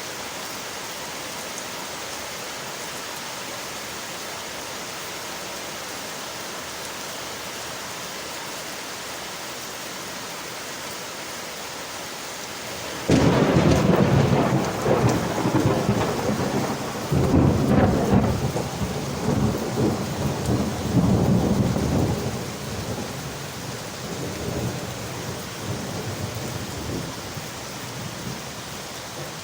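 Steady rain on window glass. A little under halfway through, a sudden, loud thunderclap breaks in and rolls in rumbling waves for several seconds, then fades back under the rain.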